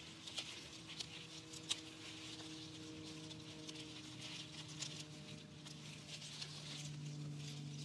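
Lettuce leaves being picked by hand: soft scattered snaps and rustles of the leaves, with a faint steady hum in the background that grows a little louder near the end.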